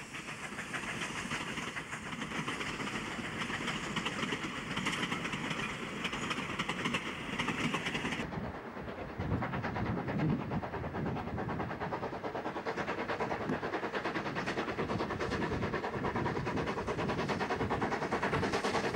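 Passenger carriages rolling past, wheels clicking steadily over the rail joints. About eight seconds in the sound cuts to a New South Wales 32 class 4-6-0 steam locomotive working a train, with rhythmic exhaust beats over the running noise.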